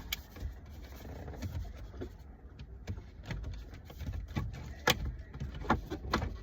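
Irregular clicks and knocks of a car radio head unit and its plastic trim and connectors being handled and fitted into the dashboard, over a steady low rumble.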